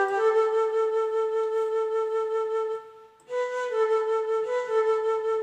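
A flute playing a traditional melody in long held notes that step between a few pitches, with a short breath pause about three seconds in.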